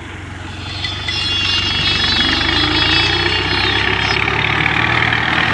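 Al-Ghazi farm tractor's diesel engine running steadily as it drags a rear leveling blade through sandy soil, getting louder about a second in as it comes close.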